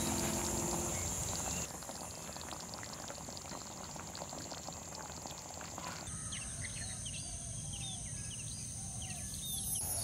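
Soft music fades out at the start, then a fine crackling hiss with many small ticks. From about six seconds in, birds sing outdoors, short rising chirps and lower whistled notes, over a steady high insect drone.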